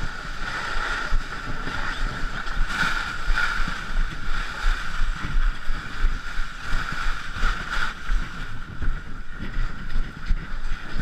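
Ice canoe hull scraping steadily as it slides over snow while the crew pushes it and runs alongside in crampons, with wind buffeting the microphone.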